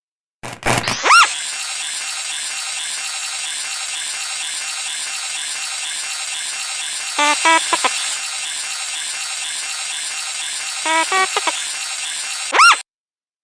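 Star Wars mouse droid sound effect: after a few clicks and a swooping chirp, a steady whirring, ratchety motor drone runs on, broken twice by quick clusters of short chirps. It ends with another swooping chirp and cuts off suddenly.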